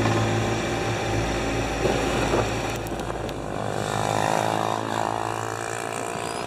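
Motorbike engine running on a wet road, its low engine tone dropping away about three and a half seconds in as it slows.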